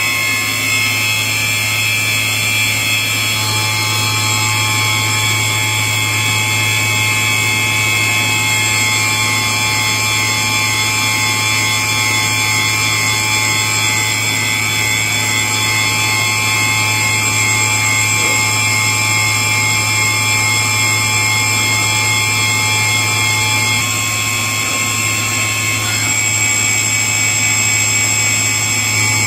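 Walter Helitronic Power CNC tool grinder running under power: a steady high-pitched whine of several tones over a low hum. One of the tones drops out about three-quarters of the way through.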